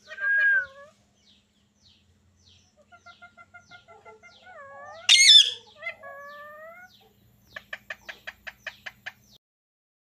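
Rose-ringed parakeets calling: a short call at the start, then from about three seconds in a string of gliding whistled notes broken by a loud squawk about five seconds in, and near the end a quick series of about a dozen short sharp chirps.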